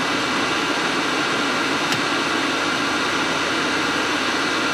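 Heat gun and electric heater blowing steadily, an even rush of fan and air noise, with a faint click about two seconds in.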